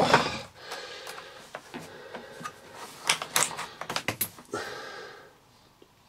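Light clicks, taps and rustling of a vacuum cleaner's mains cable being handled and drawn out of its opened plastic housing, with a few sharper knocks about three to four seconds in.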